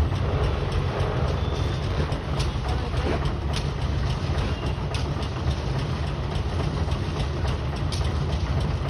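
Heavy machinery of a pile-driving rig running steadily with a deep engine drone, with faint, irregular clicks and knocks over it rather than regular hammer blows.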